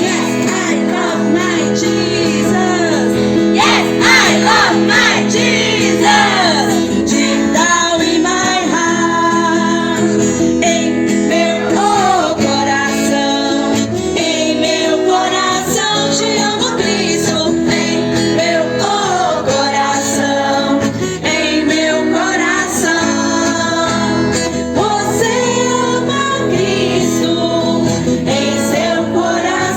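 Music: a song with guitar accompaniment and singing.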